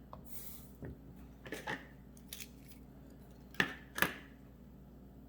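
Small hand tools and wire being handled at a workbench: light rustling and ticks, then two sharp clicks about half a second apart a little past the middle.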